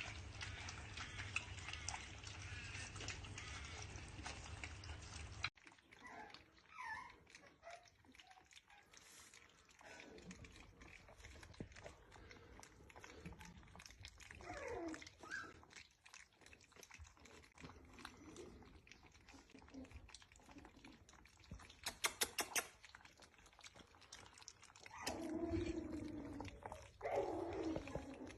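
A dachshund chewing and crunching food, a dense run of clicks that cuts off about five seconds in. Then a dog whining in short rising and falling whimpers, with a quick rattle of clicks about three quarters of the way through.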